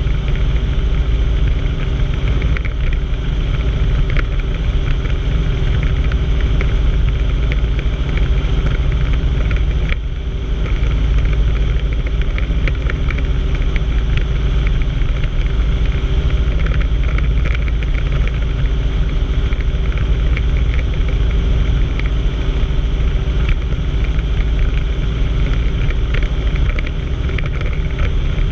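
Light helicopter in low-level flight, heard from inside the cabin: a loud, steady drone of engine and rotor.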